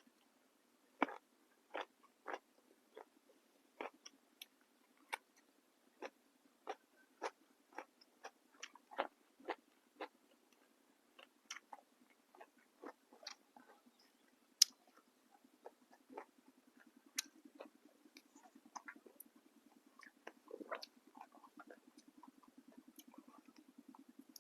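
Close-up eating sounds: a person biting and chewing crisp fresh raw vegetables with a meal, in a run of sharp crunches about one to two a second. A low steady hum sets in about two-thirds of the way through.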